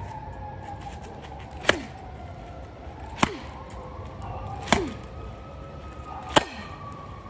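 Baseball bat hitting a smashed pumpkin on the ground, four sharp whacks about a second and a half apart.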